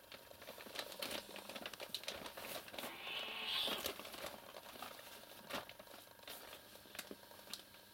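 Two cats play-fighting on a heap of clothes: fabric rustling and crumpling with scattered light taps, loudest about three seconds in.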